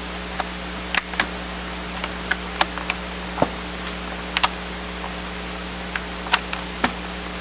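Sharp plastic clicks and knocks, irregular and about one a second or less, as the battery of a Panasonic Toughbook CF-19 is unlatched and worked out of its bay.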